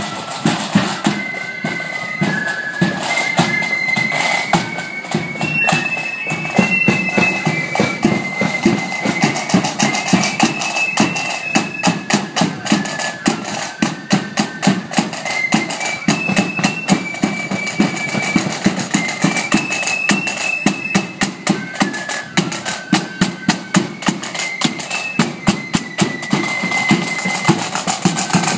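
Marching flute band playing a tune: flutes in unison carry a high melody over a constant rapid beating of side drums.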